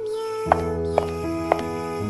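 Background music: a gentle, lullaby-like song with a held note over sustained chords, cut by three short sharp hits about half a second apart.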